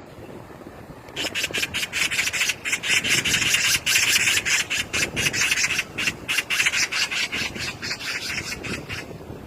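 Magpie giving its harsh, fast rattling chatter, a rapid string of rasping notes that starts about a second in and eases off near the end.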